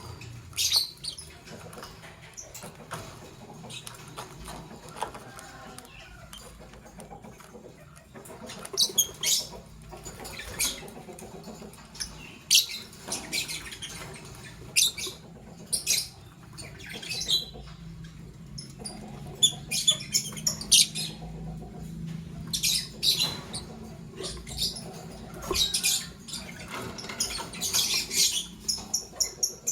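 Lovebirds chirping: short, sharp, high-pitched chirps and squeaky calls in irregular bursts, busiest in the second half, with quick rapid chirp series near the end.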